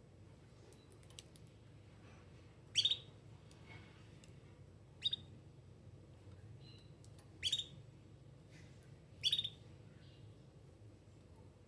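Domestic canary giving short, sharp chirp calls, four of them about two seconds apart, over a faint low hum.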